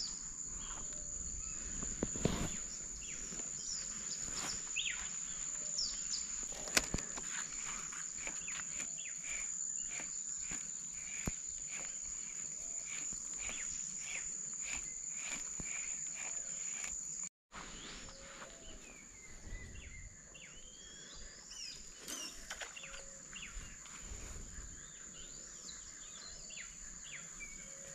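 Tropical riverside forest insects and birds: a steady high-pitched insect drone with scattered bird chirps and calls over it. A brief dropout comes a little past halfway; after it the sound is quieter, with more varied gliding birdcalls.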